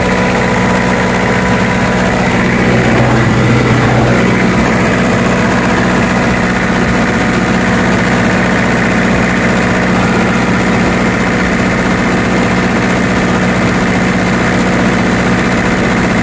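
Reconditioned four-cylinder diesel engine of a Denyo generator set running steadily after its rebuild, throttled up and running smoothly, with an even, unchanging pitch and a brief slight change about three seconds in.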